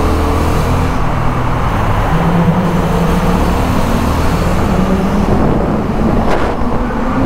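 Honda Hornet 750's parallel-twin engine running at speed, heard from the rider's position with heavy wind and road noise inside a road tunnel; the engine note rises about two seconds in.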